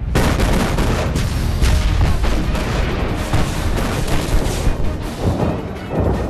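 Warship deck guns firing a barrage, blast after blast in quick succession with heavy low rumble and explosions, mixed with film score music.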